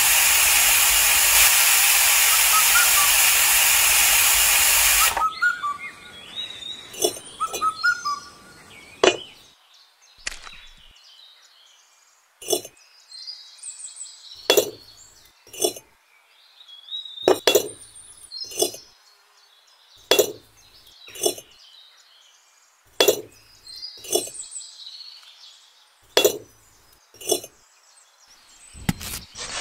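A loud steady hiss for about five seconds that cuts off suddenly. After it come sharp clinks of miniature clay bricks being set down and tapped into place on a line of cement, mostly in pairs about a second apart, every few seconds. Faint birdsong sits behind the clinks.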